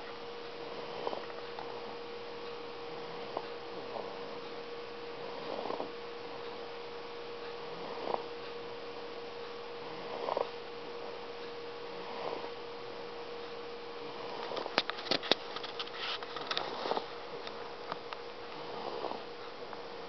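Soft snoring, one short snore about every two seconds, over a steady background hum. About three-quarters of the way through, a burst of sharp clicks is the loudest sound.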